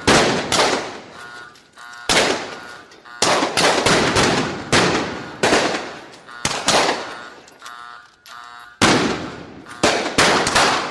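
Gunfight sound effect: irregular gunshots, some single and some in quick runs of two or three, each with a long echoing tail, well over a dozen in all. Faint metallic ringing is heard in the gaps between shots.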